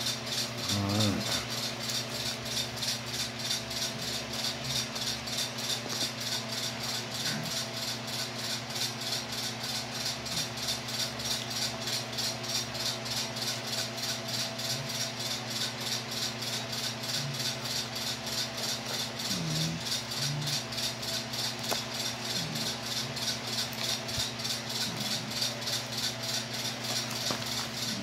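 Fast, even rhythmic rattling or ticking, about three beats a second, over a low steady hum.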